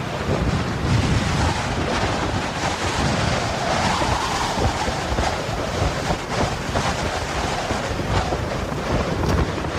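Strong wind rushing and buffeting the microphone: a continuous rushing hiss over a low rumble, with no pitched sound in it.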